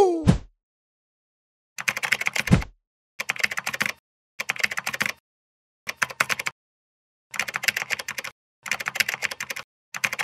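Computer keyboard typing sound effect: seven short bursts of rapid key clicks, each under a second, separated by short silences. A falling tone fades out in the first half second, and a low thump comes about two and a half seconds in.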